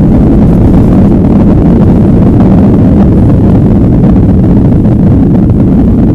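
Loud, steady low rumble of a jet airliner's engines and rolling noise heard from inside the cabin during the takeoff roll.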